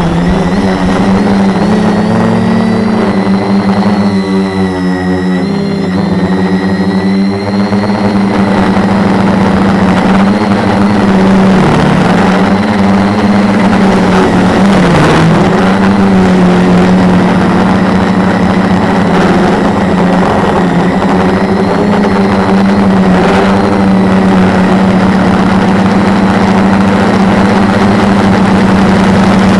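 Quadcopter's four MultiStar 2212 920kv brushless motors spinning 10x4.5 propellers, heard from the camera mounted on the craft: a loud, steady buzzing hum with wind noise. Its pitch shifts about four to seven seconds in and dips briefly a few times as the throttle changes.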